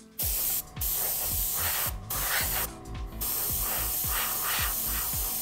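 Gravity-feed airbrush spraying blue flash paint onto a lure: a steady hiss of air and paint, broken by short pauses about half a second, two and three seconds in as the trigger is let off and pressed again.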